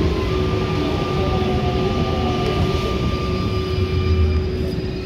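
Rubber-tyred MP89 CC metro train heard from inside the car, slowing along a station platform: a steady rumble of the tyres and running gear under a whine from the traction equipment, with tones sliding down in pitch as it brakes. A higher whine stops about four seconds in, and thin high tones come in near the end.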